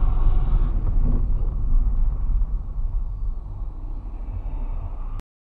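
Low, steady rumble of a car's engine and tyres heard from inside the cabin while driving. It eases off slightly and cuts off abruptly about five seconds in.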